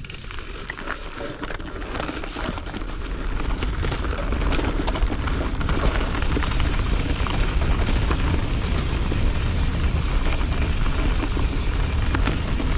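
Wind rumbling on an action camera's microphone, mixed with the knobby tyres of a Canyon Strive mountain bike rolling over dirt and dry leaves and a few small rattling clicks from the bike. The rumble grows louder over the first few seconds as the bike picks up speed downhill, then holds steady.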